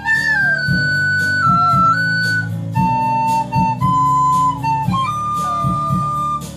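Instrumental music: a high, clear melody of long held notes that step up and down in pitch, over a steady rhythmic accompaniment.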